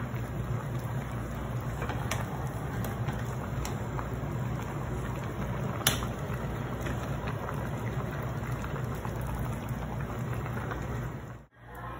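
A pot of fish soup with Malabar spinach boiling steadily, bubbling, with a low hum underneath and one sharp clink about six seconds in.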